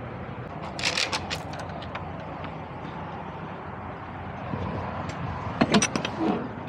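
Metal clanking and clicking of a semi-trailer's rear swing-door lock handle being grabbed near the end, after a few sharp footsteps or taps about a second in, over a steady low rumble from the idling truck.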